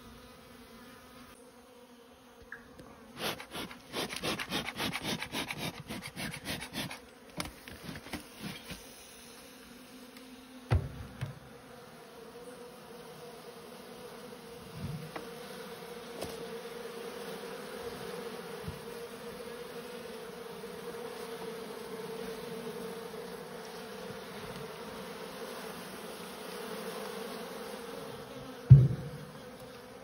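Honeybees buzzing in a steady hum that builds through the second half. A quick run of scraping clicks comes between about 3 and 9 seconds in, with a thump around 11 seconds and a louder thump near the end.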